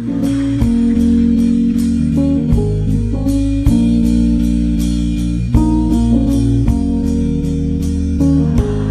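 Background music: a guitar-led instrumental over a bass line, with a steady drum beat.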